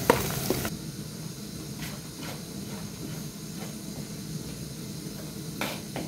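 Food frying in oil in a metal pan, sizzling, with a metal spoon stirring and scraping the pan. Less than a second in the sizzle drops to a quieter steady hiss, with a few faint spoon scrapes and one louder scrape near the end.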